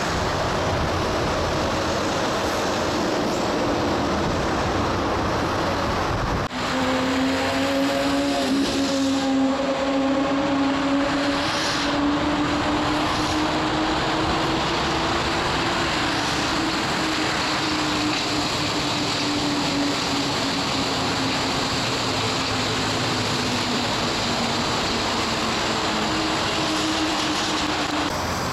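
Rubber-tyred Santiago Metro train running through a station over a steady rolling rumble. Its traction motors give a whine that climbs slowly and then falls away. The sound breaks off abruptly about six seconds in.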